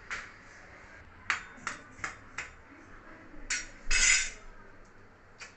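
Kitchen utensils tapping and clinking against cookware: four sharp taps in quick succession, then a louder, longer scrape and rattle about four seconds in.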